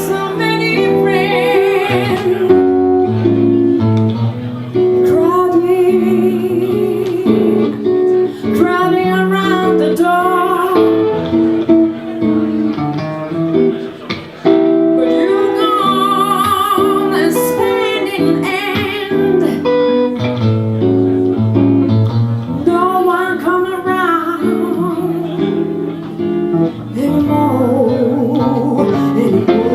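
Live music: a singer with guitar accompaniment, held notes with vibrato over a steady guitar part, in a passage between sung verses with no clear words.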